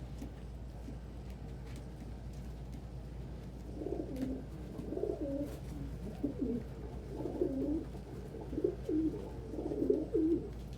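Domestic pigeon cooing: a run of low, wavering coos repeated about once a second, starting about four seconds in.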